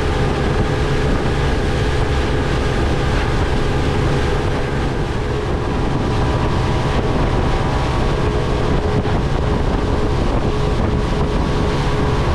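Twin Yamaha F250 four-stroke outboard motors running steadily at speed, a constant engine drone mixed with the rush of water off the hull and wake, and wind buffeting the microphone.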